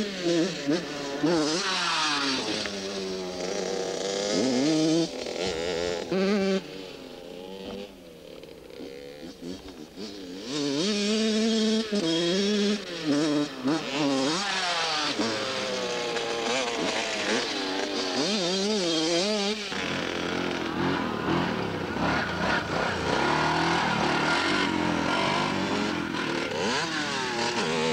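V8 engine of a homemade go-kart being driven hard, its pitch rising and falling again and again as the throttle is worked. It drops away for a few seconds about a third of the way in, then comes back loud and runs more steadily near the end.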